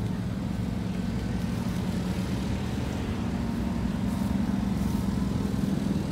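An engine running steadily at a constant pitch, getting a little louder in the second half.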